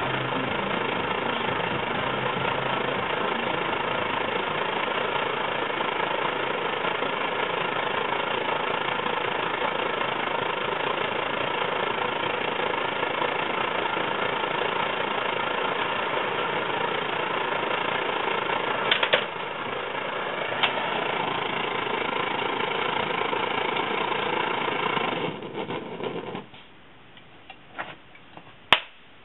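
Svea 123R white-gas stove burning with a steady roar from its burner. A few metal clicks come from the stove being handled, and about 25 seconds in the roar dies away as the stove is shut off.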